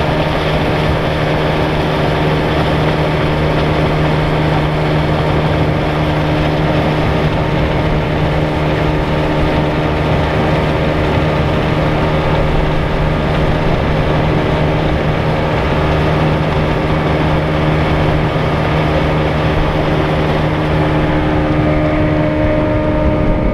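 Fishing boat's motor running steadily while under way, a loud low hum over the rush of water and wind. Near the end the engine note changes, the low hum dropping out and a higher tone taking over.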